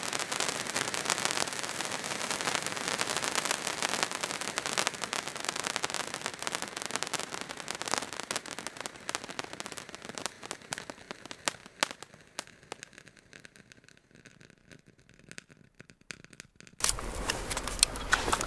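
Firework fountain spraying sparks with a dense crackle of countless small pops, which thins to scattered pops and dies away about two thirds of the way through. Near the end a steady low rumble comes in suddenly.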